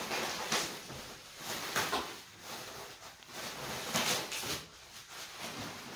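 Bubble wrap crinkling and rustling as it is handled and pulled off a barbell in a cardboard box, the crackle coming and going unevenly.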